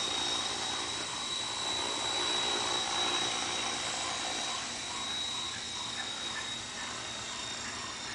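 Radio-controlled model helicopter hovering high overhead, a steady high-pitched whine over a rushing rotor noise that grows a little quieter in the second half.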